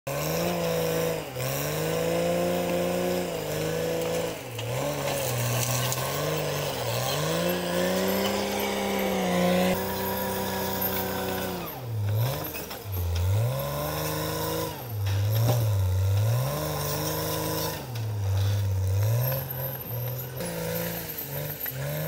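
Caterpillar D6R XL crawler bulldozer's diesel engine working under load while pushing brush, its pitch dropping and climbing back again and again.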